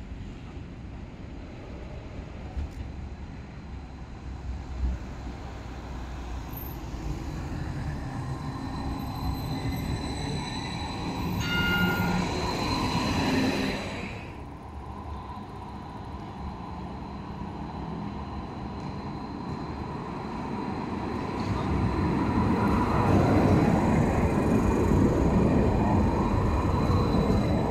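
Red Rhonexpress light-rail trams passing on the rails, twice. The first one's rolling noise builds, with a brief high squeal or whine just before it passes about halfway through. A second passes close near the end, and its rolling rumble is the loudest part.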